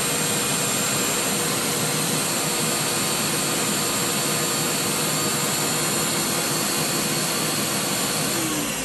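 Ninja countertop blender running at full speed, blending a thin tomato and broth sauce. Near the end the motor winds down with a falling whine as it is switched off.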